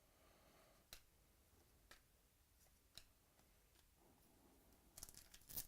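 Near silence with faint light clicks about once a second as trading cards are handled, then a short burst of crinkling and rustling near the end.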